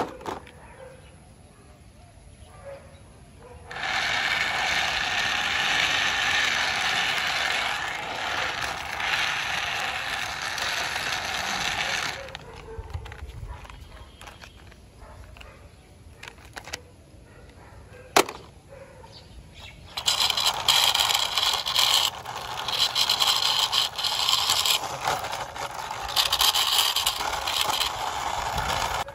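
Plastic wheels of toy vehicles rolling along a rough concrete surface as they are pushed by hand, in two long runs of rasping noise, with a single sharp click between them.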